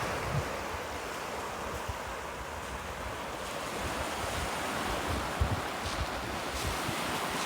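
Sea surf washing steadily on the shore, with wind gusts buffeting the microphone now and then.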